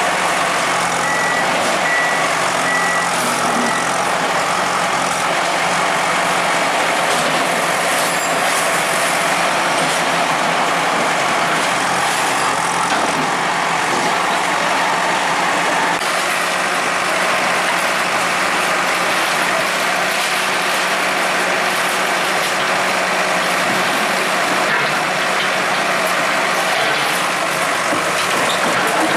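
Heavy diesel engine of a bulldozer running steadily under demolition work, a dense continuous noise. A short run of about four high beeps sounds a second or so in.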